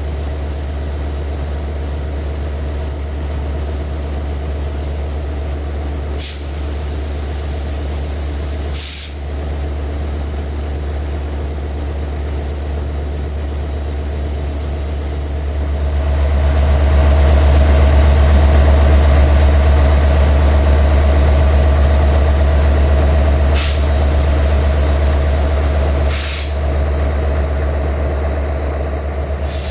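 Diesel locomotive engine idling with a steady low throb, picking up and running louder from about halfway through. Four short hisses of air, two in the first half and two near the end.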